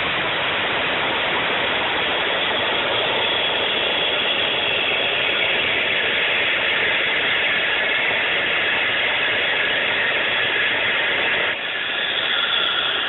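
Homebuilt gas-turbine jet engine on a go-kart running steadily, a loud even rushing noise with a brief dip about eleven and a half seconds in.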